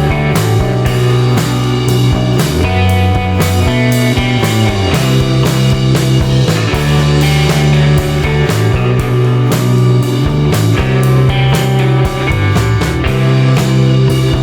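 Background rock music with a steady beat, bass and guitar.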